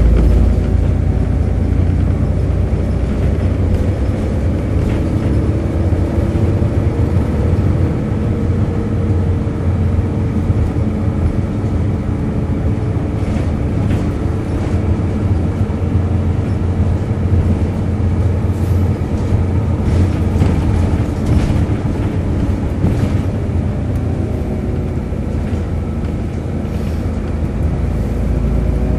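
Volvo B7RLE bus's six-cylinder diesel engine and drivetrain running on the move, with a groaning tone whose pitch slowly rises and falls. Short rattles come and go in the middle.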